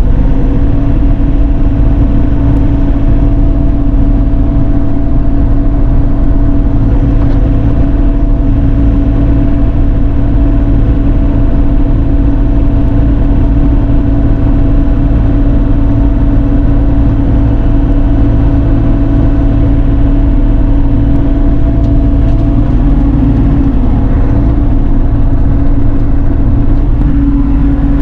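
Bobcat E42 mini excavator's diesel engine running steadily at working speed as the bucket works the dirt, heard from inside the cab with a constant hum.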